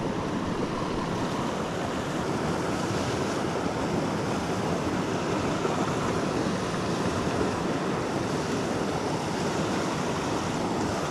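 Small mountain creek running and rushing over rocks: a steady, even water noise.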